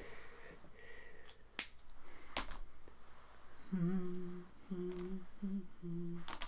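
A man hums a short tune of four steady low notes in the second half, after a few sharp clicks, the loudest about two seconds in.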